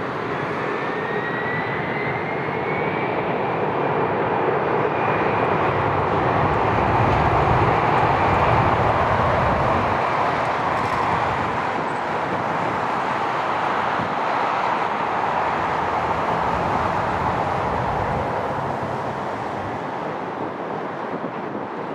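Jet airliner taking off, its engine noise swelling to a peak about eight seconds in and then slowly fading as it climbs away. A faint whine rises in pitch over the first few seconds.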